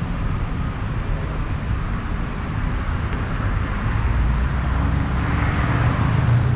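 Motor vehicle engine noise in the street, a steady low rumble that grows somewhat louder over the last couple of seconds.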